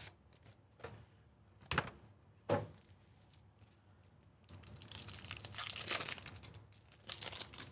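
Two short sharp knocks, then a trading-card pack's plastic wrapper crinkling and tearing open by hand for about three seconds near the end.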